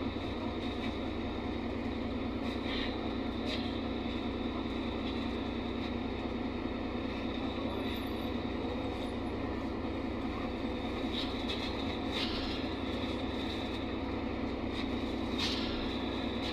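Interior noise of a NefAZ 5299 city bus on the move: its Cummins ISBe diesel engine running steadily under road and tyre noise, with a few short clicks of cabin rattle.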